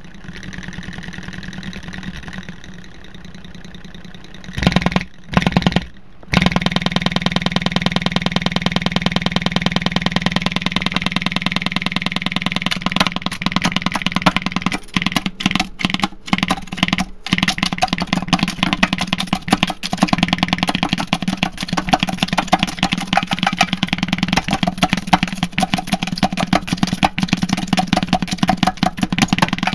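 Abused Rockford Fosgate Crescendo midrange speaker, its cone cut and beaten, overdriven with a hard-clipped signal: a loud, distorted buzz with a fast, even pulse. It comes in as two short bursts about five seconds in, then plays continuously, cutting out briefly several times in the middle.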